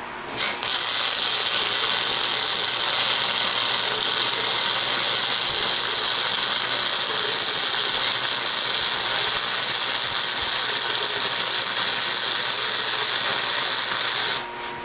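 Electric welding arc striking and then running a steady, continuous bead for about fourteen seconds, stopping sharply near the end.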